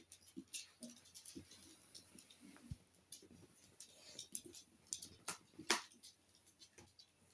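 Italian greyhounds' claws clicking and tapping on a wooden floor as they walk about: faint, irregular clicks, with two sharper ones a little past the middle.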